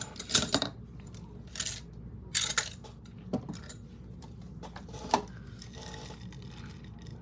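Small objects being handled on a tabletop: a few short rustles and sharp clicks in the first three seconds, another sharp click a little after five seconds, then quieter handling.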